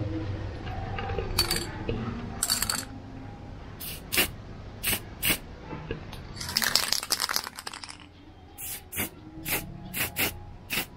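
Aerosol spray-paint can spraying in a series of short puffs, about a dozen, with one longer spray of about a second and a half about six seconds in.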